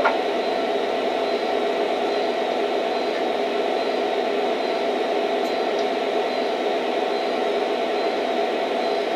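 Lionel O-scale SD70ACe model locomotives' onboard sound system playing a steady diesel-engine idle through their small speakers, with no change in pitch or level.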